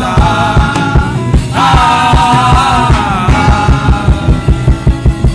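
Gospel worship music between sung lines: a steady kick-drum beat under long held notes, which run for about the first three seconds.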